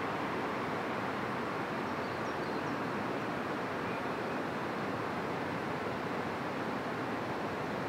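Steady outdoor rushing noise, even and unchanging, with no pitch or rhythm. A few faint high chirps sound about two seconds in.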